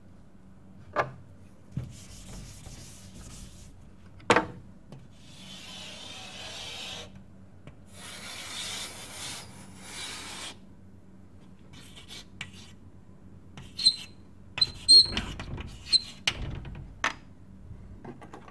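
Hand drawing lines of a graph: three long scratchy strokes of a couple of seconds each across the writing surface, with several sharp taps and knocks, most of them bunched near the end.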